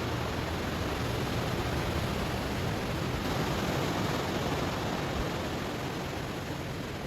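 Ocean surf washing over stones: a steady rushing hiss of waves that swells a little in the middle and eases off toward the end.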